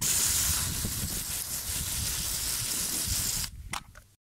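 Water jet from a hose spraying onto an aluminium bike stem, rinsing off the caustic drain-cleaner foam; a steady loud hiss that cuts off about three and a half seconds in.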